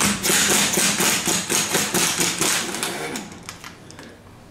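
Rapid tapping, about six sharp strikes a second for about three seconds, then dying away.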